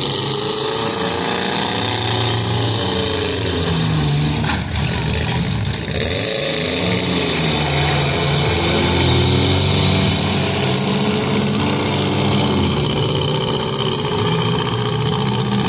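Several demolition-derby compact cars' engines revving at once, their pitches rising and falling repeatedly and overlapping.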